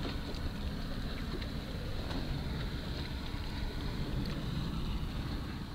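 Wind noise on the microphone out on open water: a steady low rumble with an even hiss above it.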